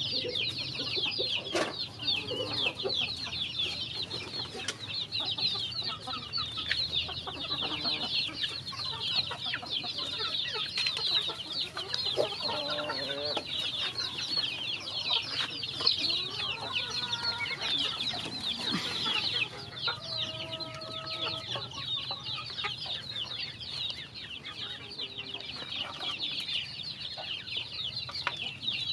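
A flock of young chickens peeping without pause while they feed, a dense high chorus of short falling peeps. Now and then a lower, longer call rises over it.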